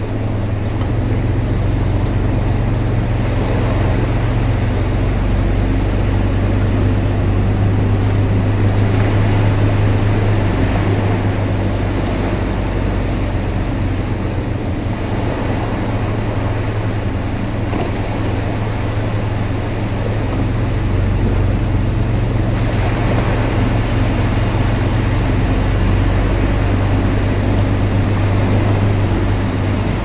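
A steady low motor drone with an even wash of outdoor noise above it, unchanging throughout.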